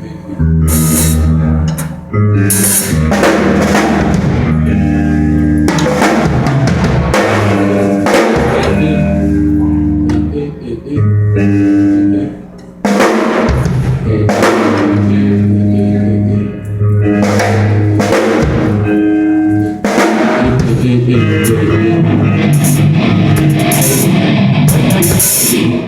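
Heavy metal band playing loudly on stage during a sound check: drum kit with bass drum and snare, guitar and bass, breaking off briefly a few times.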